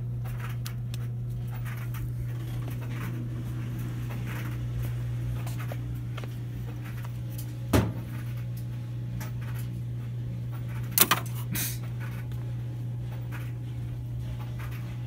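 Handling noises from reassembling a CRT TV's plastic cabinet: scattered faint clicks and scrapes, with two sharp knocks, one about halfway through and another about three seconds later, over a steady low hum.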